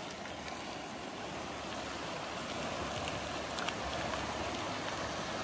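Steady rushing noise of a swollen, muddy river in flood, its fast current tearing past an eroding earth bank.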